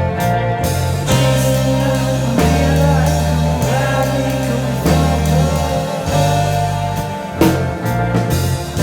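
Rock band playing a song: guitar over sustained low bass notes that step to a new pitch about once a second, with drums and a few cymbal hits.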